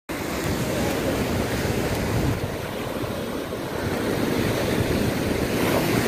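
Small waves breaking and washing up over a sandy beach, a steady rushing wash of surf.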